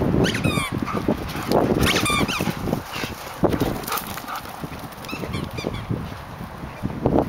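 Belgian Tervuerens playing rough: short, high-pitched yelps in three quick bouts, over rustling and thumping of paws on the forest floor.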